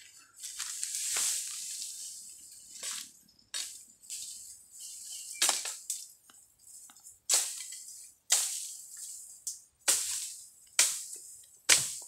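Footsteps crunching through dry leaf litter and twigs on the forest floor, about one step a second, each a sharp crackle that fades quickly.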